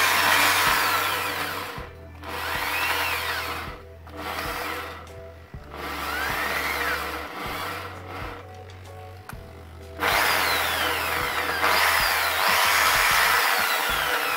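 Corded electric hand drill mounted in a drill-press stand, switched on and off in several short runs, its whine rising as it spins up and falling as it winds down, then running steadily for the last few seconds. It runs at a rather high speed.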